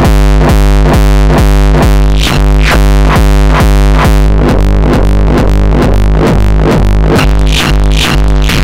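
A hard-dance kick built from a 909 kick drum, distorted through FabFilter Volcano 3's resonant filters on the Tube algorithm, looping at a little over two hits a second. Each hit drops in pitch, and its resonant ring shifts in tone as the filters are moved.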